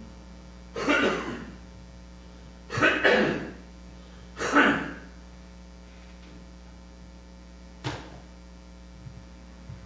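A man coughing three times, about two seconds apart, over a steady electrical mains hum, with one sharp click near the end.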